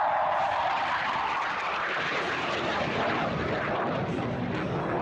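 BAe Hawk 127 jet trainer's single Adour turbofan, a steady rushing jet noise as the aircraft flies past overhead, growing brighter and higher about two seconds in.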